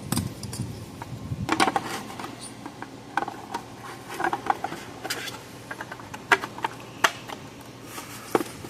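Irregular clicks, taps and knocks of the plastic case, circuit board and wiring of a Power Wizard PW5000XD electric fence charger being handled and pushed into place as the case is fitted back together, with a short cluster of rattles about two seconds in.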